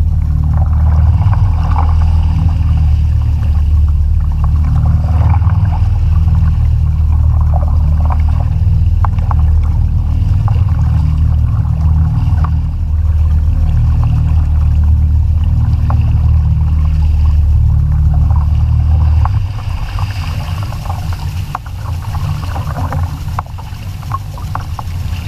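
Kayak under sail: a heavy wind rumble on the microphone, with water lapping and splashing against the hull. The low rumble eases about 19 seconds in.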